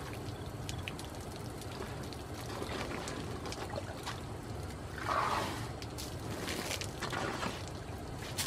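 African bush elephant's trunk working in a muddy puddle: water trickling and splashing, with louder swells about five seconds in and again around seven seconds in.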